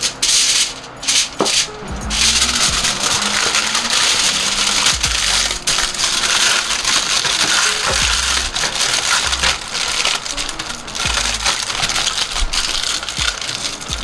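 Aluminium foil crinkling and crackling as it is folded and crimped into a parcel by hand, with many small crackles, and light background music underneath.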